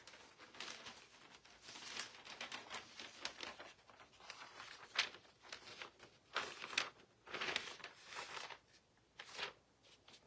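A sheet of newsprint rustling and crinkling in several short bursts as it is handled and laid flat onto the water of a marbling tray, skimming the leftover paint off the surface.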